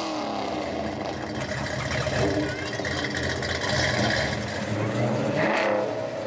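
Car engines running at low speed, loud and rumbling, as one car drives off and another pulls up, with voices mixed in.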